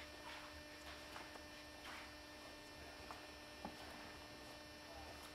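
Near silence: a steady low electrical hum of room tone, with a few faint ticks scattered through it.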